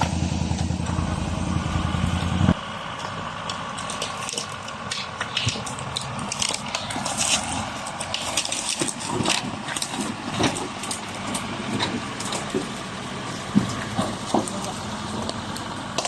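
A vehicle engine running steadily that cuts off abruptly about two and a half seconds in, followed by irregular crunching and crackling.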